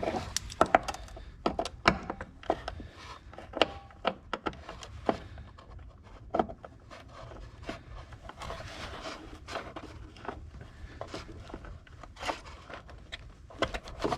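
Locking pliers (vise grips) clamping onto a broken-off battery hold-down bolt stub in a plastic battery tray and slipping off it: irregular sharp clicks and knocks with some scraping. The grips keep popping off the top of the stub.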